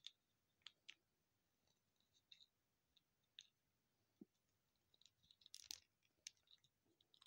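Very faint, scattered clicks of small plastic parts being handled: a gashapon figure and its clear plastic stand, with a short run of clicks near the end.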